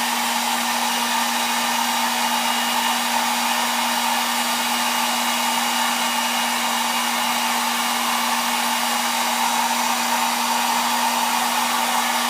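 Hot-air blower running steadily with a constant hum, heating a phone's glass screen to soften the glue between the glass and the digitizer.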